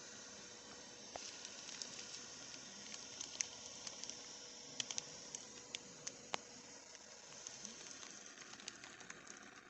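Faint steady hiss with scattered light clicks and ticks at irregular intervals, from the Redragon FIZZ K617 magnetic-switch keyboard being lightly handled, not typed on.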